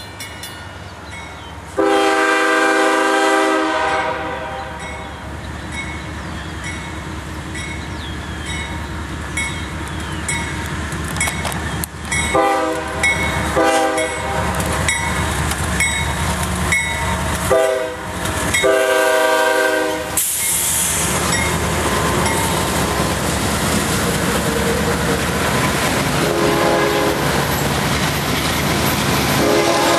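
A CSX freight train's lead diesel locomotive sounds its air horn in several blasts, one long about two seconds in, then a cluster of short and long blasts later on. The locomotives and the string of auto-rack cars then roll past with a steady rumble and clickety-clack of wheels on rail joints.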